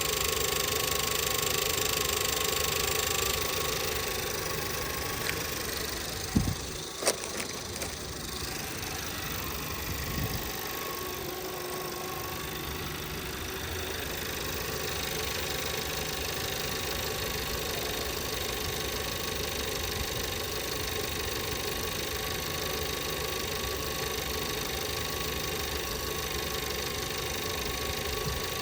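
A VW Passat's 1.8 turbo four-cylinder engine idling steadily with its new camshaft adjuster solenoid fitted, while it is watched for a returning misfire. A few sharp clicks come about a quarter of the way through.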